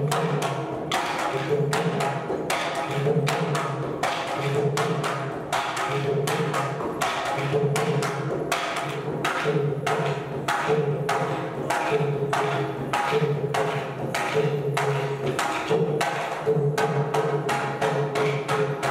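Tharu stick dance: wooden sticks clacking together in a steady rhythm, about three strikes a second, over a hand-played barrel drum.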